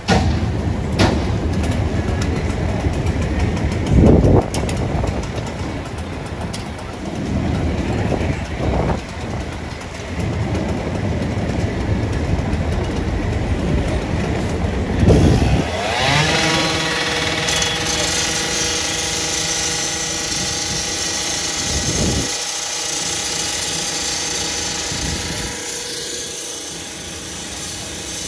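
Heavy thuds and clanks over a low rumble. About sixteen seconds in, a gas-powered rotary saw revs up and runs steadily at high speed with a harsh hiss, cutting into the heavy metal top of the garbage truck's body.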